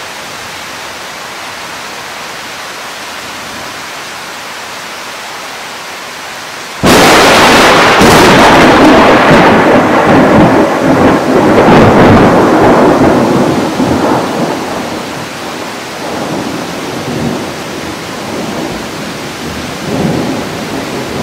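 Steady rain, then about a third of the way in a sudden loud clap of thunder that rumbles on for several seconds, loud enough to distort the recording. It fades to lower rolling rumbles, with another swell of rumble near the end.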